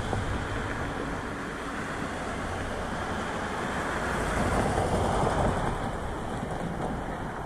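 Wind buffeting an outdoor camera microphone: a steady rush with a low rumble, swelling from about four to five and a half seconds in.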